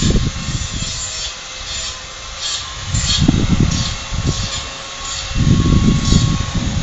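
Wind gusting against the microphone in low rumbles, strongest near the start and again near the end. Under it, faint rasping strokes repeat about every half second from midway, with a faint steady hum throughout.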